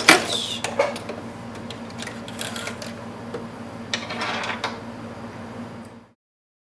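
Singer Quantum 7350 electronic sewing machine at the end of a seam. There is a sharp click just after the start, then a steady low hum with scattered small clicks, and the rustle of felt being drawn out from under the presser foot about four seconds in. The sound cuts off abruptly about six seconds in.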